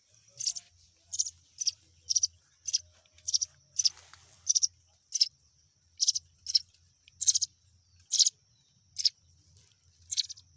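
Baby bird chicks cheeping: short, sharp, high-pitched begging calls repeated about one and a half times a second, slightly irregularly, while being hand-fed.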